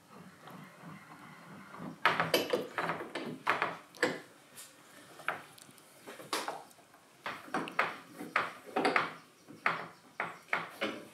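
Steel C-clamps being put on and screwed tight over glued wood laminations in a bending jig. Irregular clinks and knocks of metal against wood, starting about two seconds in.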